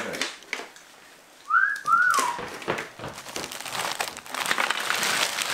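A plastic zip-top bag crinkling as frozen strawberries are tipped out of it and rattle onto a parchment-lined freeze-dryer tray. About two seconds in come two short whistle-like notes, each rising then falling.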